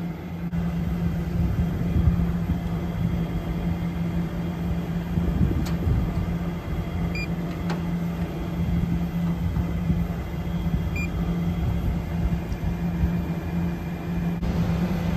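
Steady low mechanical hum with wind rumbling on the microphone. Two faint short beeps come about seven and eleven seconds in.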